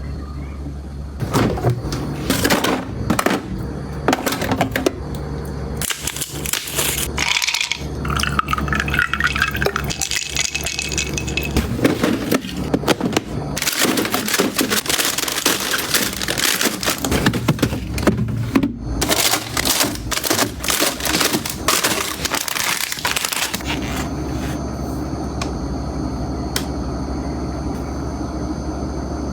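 Kitchen handling sounds: containers, packaging and food being moved, opened and set down, a long run of clicks, knocks, scrapes and rustles over a steady low hum.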